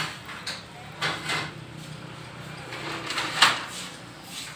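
Rubber air-filter hose of a Honda CD 70 motorcycle being handled and worked by hand, rubbing and scraping in a few short bursts. The loudest comes about three and a half seconds in.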